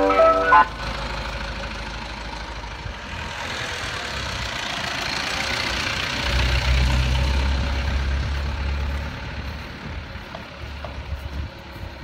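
Bedford CF ice cream van's chime tune cuts off just after the start, then its engine runs as the van drives past and away. The engine is loudest about midway and fades as the van moves off.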